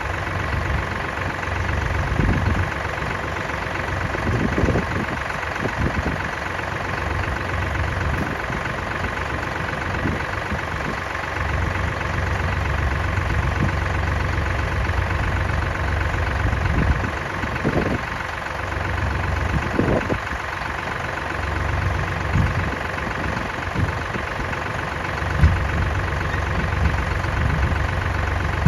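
An engine running steadily throughout. Deeper surges in its low end come and go every few seconds, with a few short knocks.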